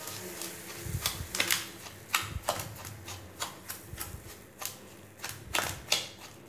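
A spoon stirring and pressing a crumbly rava laddu mix of roasted semolina and sugar in a stainless steel plate, working warm milk in. Irregular sharp clicks and scrapes of the spoon against the steel, several a second.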